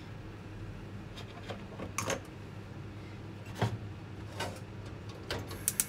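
A few separate light knocks and clatters of kitchen handling over a steady low hum. Just before the end a fast, regular clicking starts, about five clicks a second.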